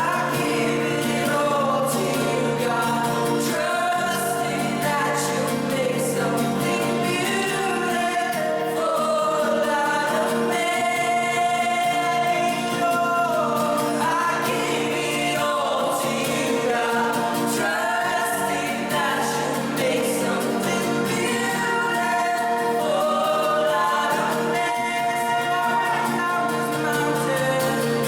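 Group of voices singing a gospel hymn over steadily held accompanying chords.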